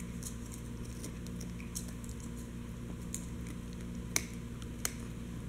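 Chihuahua gnawing a chew bone: irregular small clicks of teeth on the bone, with two sharper clicks about four and five seconds in, over a steady low hum.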